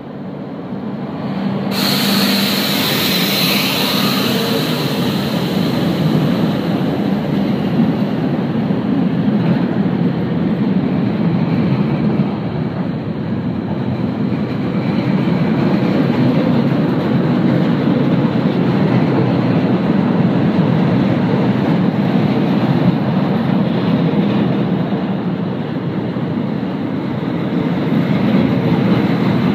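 A freight train hauled by a Class 155 electric locomotive rolls slowly past: a steady rumble of wagon wheels on the rails, tank wagons and covered goods wagons going by. About two seconds in, as the locomotive passes, a loud hiss starts suddenly and fades over a few seconds.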